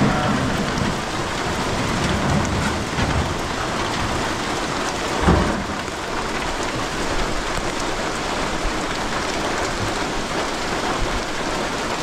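Heavy rain with big drops pouring steadily onto a corrugated zinc roof sheet, an even rushing patter, with one short, louder low thump about five seconds in.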